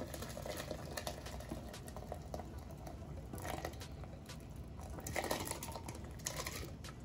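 Boiled beetroot and carrot pieces and their cooking liquid being poured into a plastic blender jar, splashing in with scattered knocks of chunks, in several louder gushes about halfway through and near the end.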